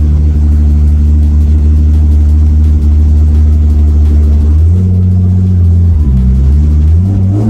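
The 1,300-horsepower Nissan Z Formula Drift car's engine running loud and low at street speed. Its note holds steady for several seconds, then rises, drops and rises again with the throttle.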